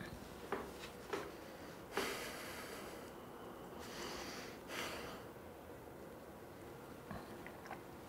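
Quiet room tone with two light clicks early on, then a person breathing audibly through the nose twice, each breath lasting about a second.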